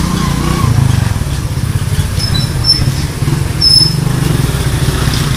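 Steady low rumble of a busy market street, with a few short high pings about halfway through.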